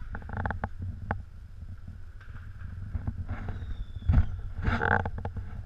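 Wind rumbling on the microphone, with a few scattered sharp knocks and bangs; the loudest comes about four seconds in.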